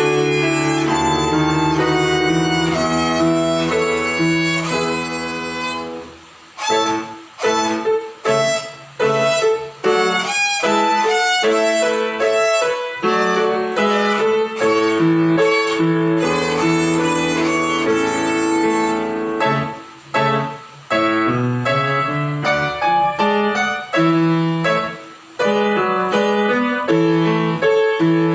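Violin playing a simple melody over a piano accompaniment, with stretches of short, separated notes in the middle and near the end.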